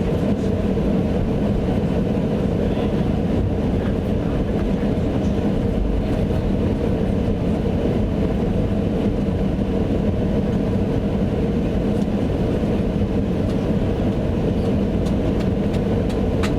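Steady rumble of jet engines and airflow heard from inside an airliner cabin, with a constant low drone.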